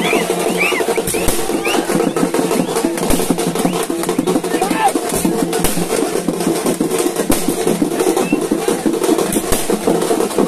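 Fast, dense drumming over the continuous noise of a large crowd, with voices shouting.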